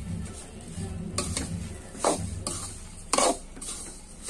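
A perforated steel spatula stirring and scraping khoa and roasted semolina against a steel kadhai, mixing the gujiya filling. It makes several scraping strokes, the loudest about two and three seconds in, over a low steady hum.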